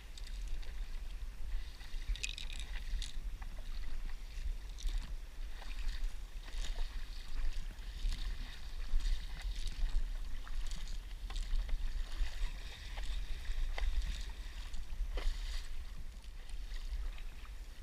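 Stand-up paddle strokes through calm sea water: the blade dipping, pulling and splashing every second or two, over a steady low rumble.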